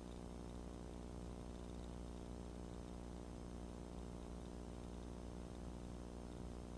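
Cessna 150's four-cylinder Continental O-200 engine and propeller droning steadily at climb power, a constant, unchanging hum of layered low tones.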